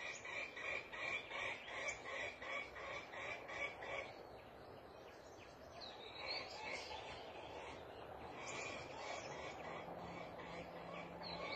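Wild birds and frogs calling: a rhythmic pulsing call about three times a second for the first four seconds, a few short chirps, and a low steady croaking drone that begins near the end.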